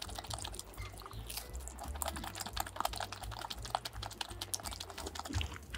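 Close-miked chewing of pizza crust with the mouth closed: a dense, steady run of small crisp clicks and crunches.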